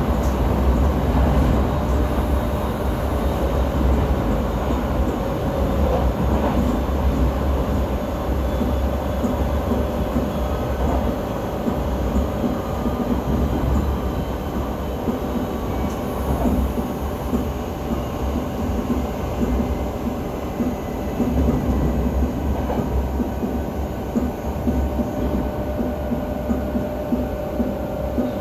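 Electric commuter train running at speed, heard from inside the carriage: a steady rumble of wheels on rail with a few faint clicks. A thin steady whine grows stronger near the end.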